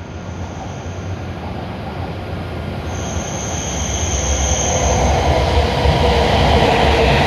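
E7-series Shinkansen train pulling into the platform to stop, its running noise growing steadily louder as it nears. A high steady whine sounds from about three to five seconds in, and a lower hum builds near the end as the cars pass.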